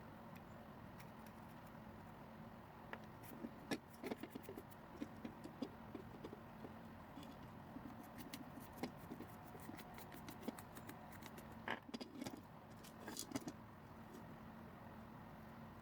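Faint scattered clicks, taps and light rattles of small hard parts being handled, plausibly the plastic toy and tools during a repair, over a low steady hum. The clicks come in irregular clusters from a few seconds in until near the end.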